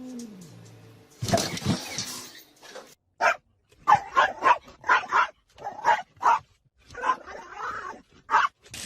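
A dog barking: a rapid string of about a dozen short, sharp barks.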